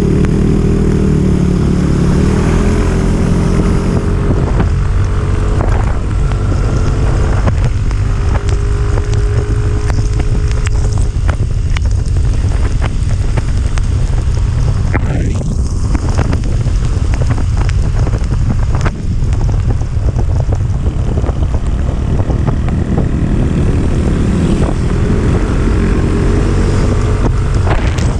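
Motorcycle engine running at riding speed, buried under heavy wind buffeting on the microphone. The engine pitch drops slightly near the start and climbs again near the end.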